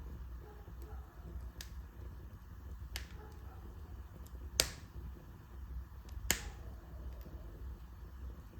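Wood fire in a fireplace crackling, with four sharp pops, the two loudest in the second half, over a low steady rumble.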